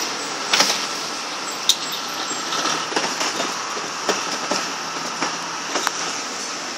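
Plastic wheelie bin rolled on its wheels over rough concrete: a steady rumble with irregular clacks and knocks, about one or two a second.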